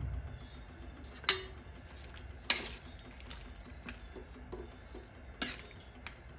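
Metal ladle stirring soup in a pan, clinking sharply against the pan three times with softer knocks and scrapes in between.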